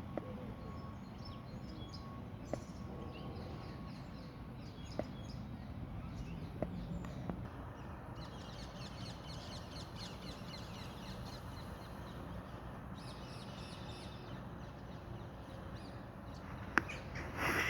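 Small songbirds chirping and singing, with a dense run of rapid high notes in the middle, over a steady low background rumble. A few faint clicks sound in between, and a louder brief sound comes near the end.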